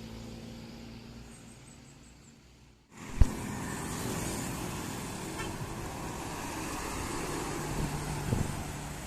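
A passing vehicle's engine fades away over the first few seconds. After an abrupt cut there is a single sharp loud thump, then steady road traffic noise.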